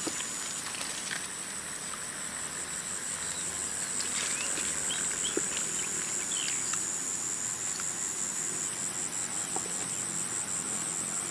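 Insects chirring in a steady high-pitched drone that turns into a rapid pulsing in the later part, with a few faint ticks and rustles over it.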